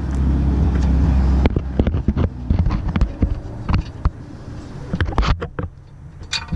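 Hands working at a truck engine's flexplate from underneath: a low rumble of handling on the microphone for about the first second and a half, then irregular metal clicks and knocks as the flexplate is turned by hand to reach the torque converter bolts.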